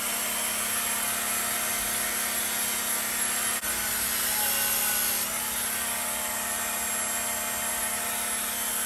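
Handheld electric belt sharpener running steadily, its 220-grit abrasive belt making light passes along a steel axe edge to sharpen it.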